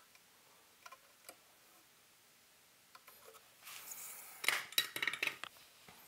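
Faint room tone, then a short hiss and a quick run of small metallic clicks and clinks from handling the soldering iron and wiring on the chassis, about four seconds in.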